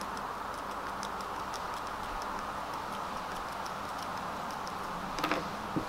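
Steady hiss with faint scattered ticks, then one short stone-on-stone knock about five seconds in as a fragment of the ammonite's rock matrix is set against the main block.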